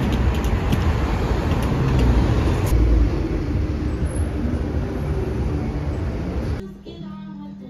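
Busy street traffic: vehicles passing with a steady low rumble, loudest about two to three seconds in. Near the end it cuts off suddenly and music takes over.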